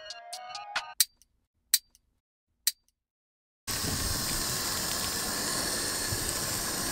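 The tail of background music fades out, followed by a couple of seconds of silence with a few faint clicks. About halfway through, a steady hiss of water spraying from a garden hose starts suddenly.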